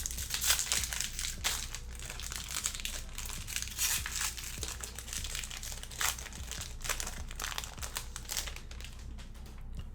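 Trading card pack wrapper being crinkled and torn open by hand, a dense crackling that thins out near the end.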